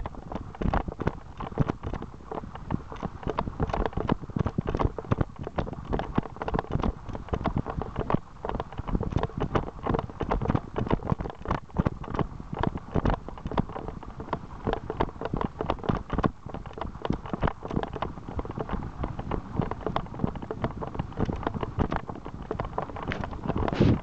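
Running footsteps on a dirt forest trail, a quick uneven run of thuds, mixed with the knocking and rubbing of a handheld camera jolted by the runner's stride.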